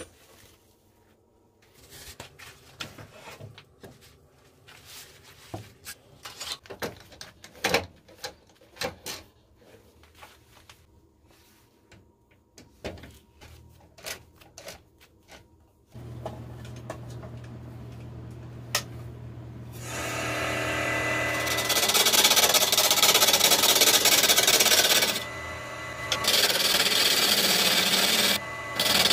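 Clicks and knocks of a chuck key tightening a four-jaw chuck on a maple burl blank, then the wood lathe's motor starting with a low hum. The gouge then cuts into the spinning burl with a loud, steady shaving hiss that breaks off briefly twice near the end.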